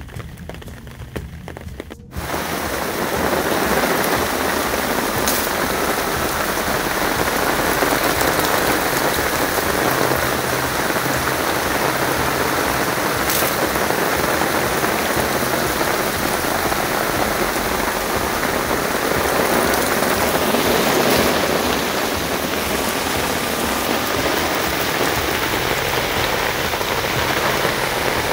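Heavy rain falling steadily, cutting in abruptly about two seconds in.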